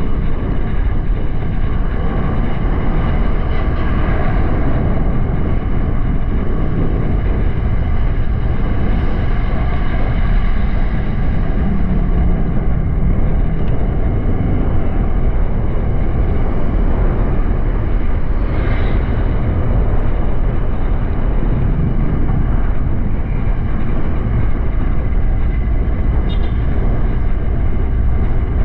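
Honda Click 125i scooter under way: its single-cylinder engine runs steadily beneath a constant rush of wind and road noise.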